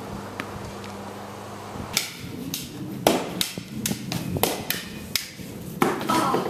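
A run of sharp knocks on a hard surface, about two a second and unevenly spaced, starting about two seconds in.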